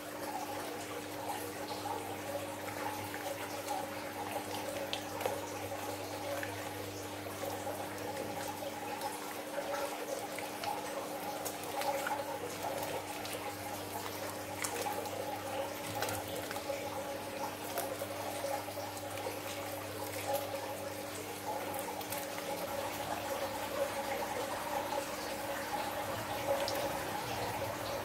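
Wet slime squelching, crackling and dripping as hands squeeze, knead and stretch it over a glass dish, over a steady background hum.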